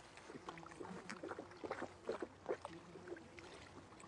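Faint water splashing and slurping as a man drinks with his face down in a muddy puddle: a scattering of small, irregular splashes.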